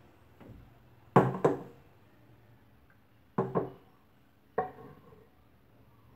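Sharp clanks and knocks of kitchen utensils: a stainless steel bowl and a knife set down and knocked against the counter and wooden cutting board. There are two quick double knocks, then a single one, each with a short metallic ring.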